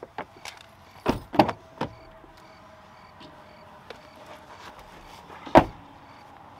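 Pickup truck door slammed shut about five and a half seconds in, the loudest sound, after a few knocks and rustles of someone climbing into the cab about a second in.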